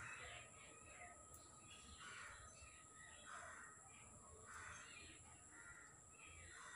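Crows cawing faintly in a series of short harsh calls, about one every second or so.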